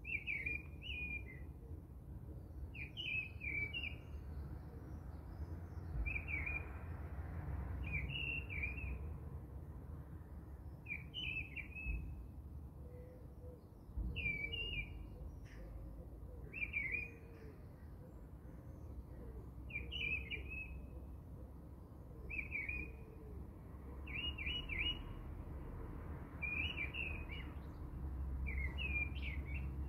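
A small bird chirping in short, repeated phrases every second or two, over a steady low rumble and a few soft knocks.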